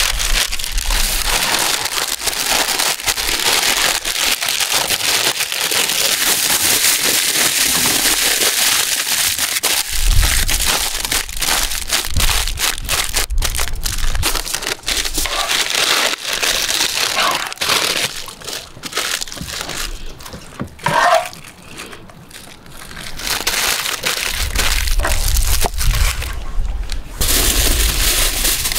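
Aluminium foil crinkling and crackling as it is crumpled tightly around a whole pineapple by hand, in a dense run of small crackles that eases off for a few seconds about two thirds through, then picks up again.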